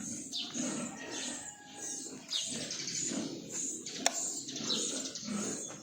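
Pigs grunting in their pens, with high chirping bird calls that fall in pitch, repeated about once a second. A single sharp click about four seconds in.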